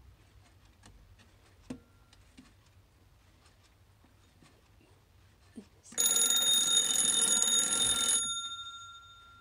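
Twin-bell quartz alarm clock being tested: faint clicks while its hands are turned, then about six seconds in the alarm goes off as they reach the set time. The hammer rings the two metal bells loudly and rapidly for about two seconds, stops abruptly, and the bells go on ringing and fade.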